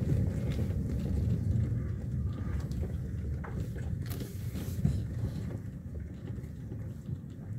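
Inside a car driving slowly: a steady low rumble of engine and tyres, easing off a little toward the end.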